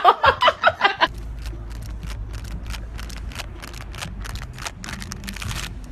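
A person laughing, cut off about a second in. Then a steady low rumble with a string of sharp, irregular clicks.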